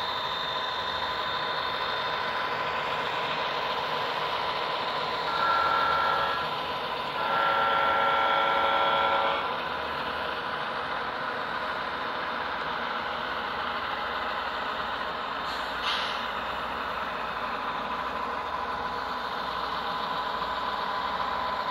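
HO scale model diesel locomotives' onboard sound: a steady diesel engine running, with two horn blasts about five and seven seconds in, the second one longer and louder. A brief knock sounds about 16 seconds in.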